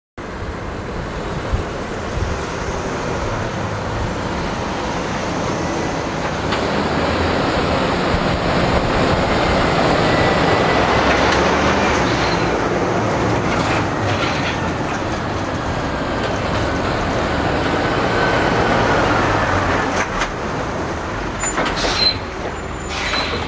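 Heavy military trucks towing loaded flatbed trailers drive past close by: steady diesel engine and tyre rumble that swells as each rig goes by, with a few sharp clanks near the end.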